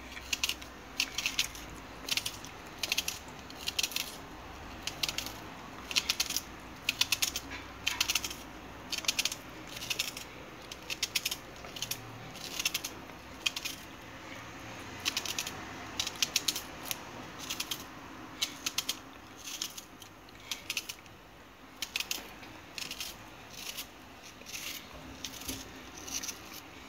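Kitchen knife chopping a red onion held in the hand over a ceramic plate: short crisp clicks of the blade, often in quick little clusters, about one cluster every second or so.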